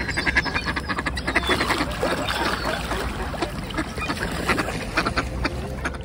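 A large mixed flock of waterbirds calling at once, mostly mallards: a dense, continuous chatter of quacks with gull calls mixed in.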